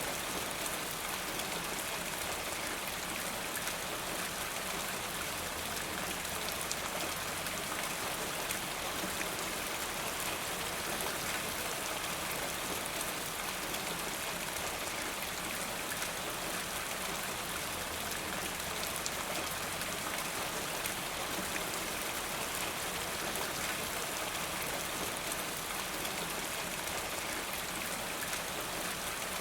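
Steady, constant rain falling, with fine patter of drops on a surface.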